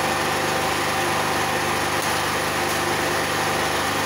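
Steady machine hum like an idling engine, even and unbroken, over a constant hiss.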